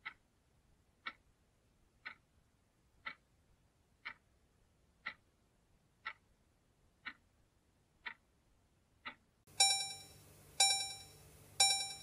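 Countdown-timer sound effect: a clock ticking once a second, then near the end three louder ringing alarm tones about a second apart as the time runs out.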